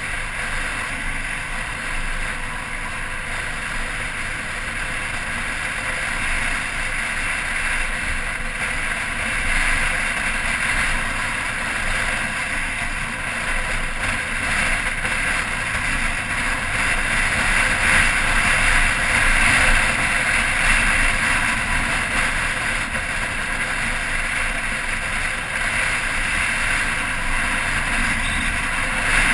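Motorcycle running steadily at road speed, its engine drone mixed with wind rush on the bike-mounted camera's microphone, swelling a little in the middle.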